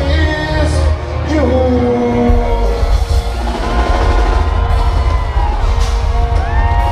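Live band music played loud in a concert hall, with heavy bass and drums, sung or shouted vocal lines and crowd whoops.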